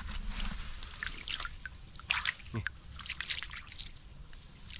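Hands working in shallow muddy water, with irregular small splashes, trickles and drips as water runs off them.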